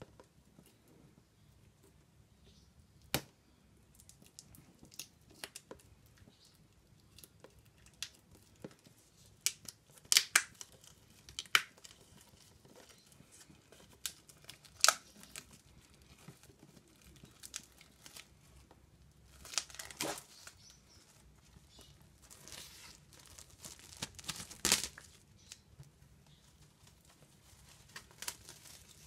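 Plastic shrink wrap being torn and peeled off a boxed Blu-ray/DVD set: irregular crinkling, with sharp tearing snaps every few seconds.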